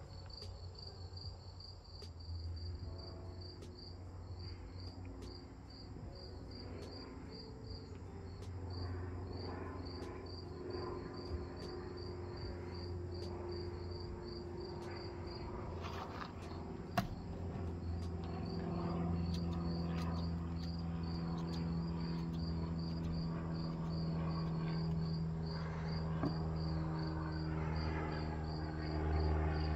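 An insect chirping in a fast regular rhythm, high-pitched, about three chirps a second, over a low steady hum that grows louder in the second half. A single sharp click about halfway through.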